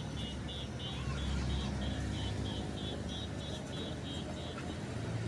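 JCB backhoe loader's diesel engine running steadily, with a reversing alarm beeping about three times a second that stops shortly before the end.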